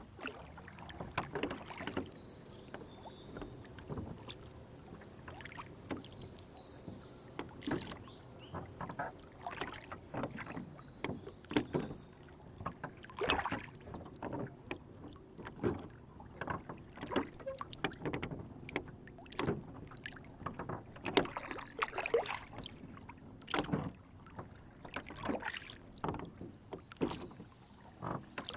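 Water lapping and splashing against a rowboat in short, irregular slaps and knocks over a steady low wash.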